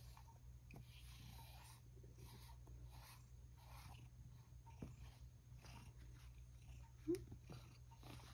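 Faint, repeated swishes of a green grooming brush being drawn through a cat's fur, one stroke every second or so. A brief low voice-like sound comes about seven seconds in.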